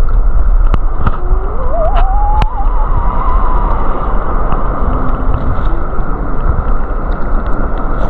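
Steady, muffled rumble of rushing stream and waterfall water heard underwater through a submerged camera, with scattered sharp clicks.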